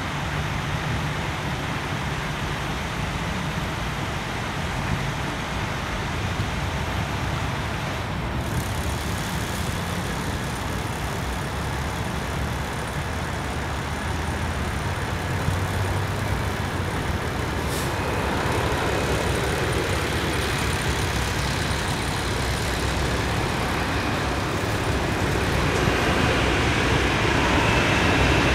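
Steady road traffic noise, a continuous rush of passing cars and trucks, which grows louder over the last ten seconds or so.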